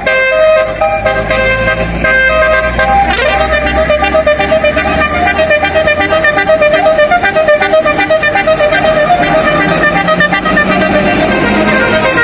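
Bus 'basuri' telolet horn, a multi-note musical air horn, playing a melody of quickly changing notes that turn into a fast, staccato run about three seconds in. A bus engine rumbles underneath for the first half.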